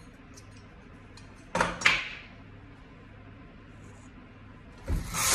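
Brother KH881 punch-card knitting machine being cleared: a couple of sharp clacks about a second and a half in, then near the end a thump and a swishing run of the carriage across the needle bed, knitting the work off the needles.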